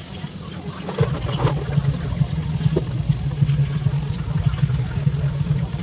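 Hand-held hair dryer running close to the head, its motor hum and rushing air getting louder about a second in and fluttering as it is moved.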